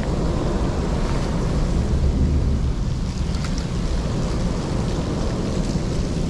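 Steady rushing of heavy rain with wind buffeting the microphone, a deep rumble underneath.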